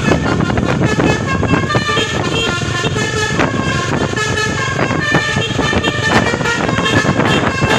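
Basuri multi-tone bus air horn playing a telolet melody of short stepped notes, over the steady running noise of the bus.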